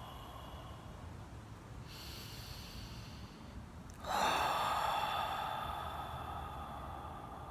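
Struck metal instruments ringing: a faint high ring about two seconds in, then a louder strike about four seconds in that rings on in several tones and slowly fades.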